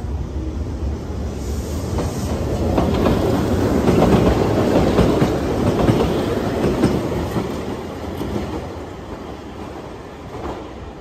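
A Keihan 700-series (700形) light-rail train passes close by over the station approach tracks, its wheels clattering over rail joints and points. It grows to its loudest about four to six seconds in, then fades away.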